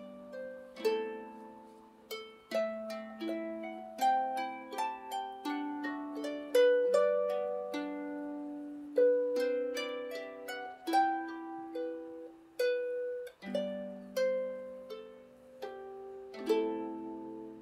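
Celtic harp playing slow background music, with plucked notes and chords each left to ring and fade.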